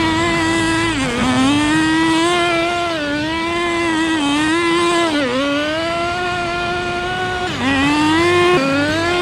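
Kyosho FW-06 nitro touring car's .15-size glow engine running at high revs with a high, steady buzz. Its pitch dips sharply and recovers about five times as the throttle is eased and reapplied through the turns.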